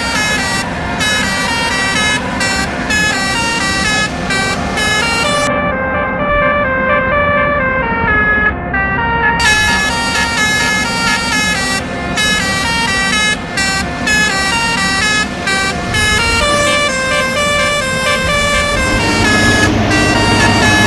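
Bus multi-tone air horn (telolet-style) playing a tune: a run of held and stepped horn notes that change pitch every fraction of a second.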